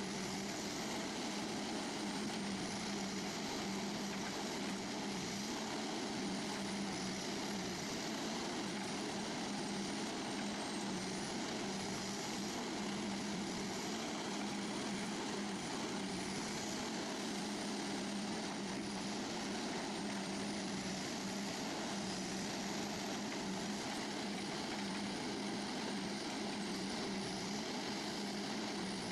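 Heavy forestry machine's engine running steadily, a constant drone with a low hum that does not change in pitch or loudness.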